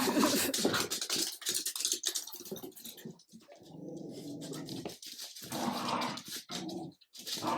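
Dogs growling in rough play, a Jack Russell terrier and a French bulldog puppy: a run of short growls, then one longer growl about three and a half seconds in, then more short growls.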